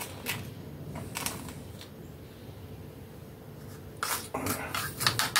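Light clicks and taps from handling a plastic funnel and spoon over a paper rocket tube while loading black powder fuel, with a quick run of small taps near the end.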